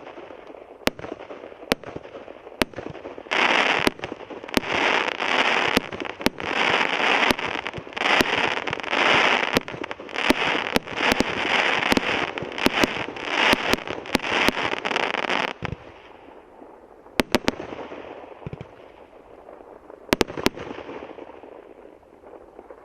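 SU-29 'Pirate' multi-calibre fan fireworks cake firing: single sharp shots about once a second, then a dense, loud run of rapid shots and bursts for about twelve seconds that cuts off suddenly, followed by a few last scattered bangs and a fading rumble.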